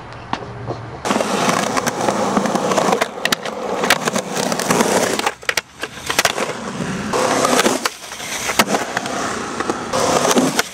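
Skateboard wheels rolling over rough concrete, with several sharp clacks of the board popping and landing. The rolling cuts in abruptly about a second in.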